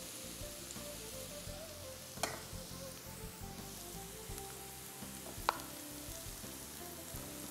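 Chopped garlic, ginger, onion and capsicum frying in hot oil in a pan, a steady sizzle. Two sharp clicks, about two seconds in and again about five and a half seconds in.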